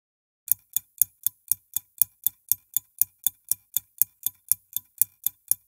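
Clock ticking, sharp even ticks about four a second in a tick-tock pattern, starting about half a second in.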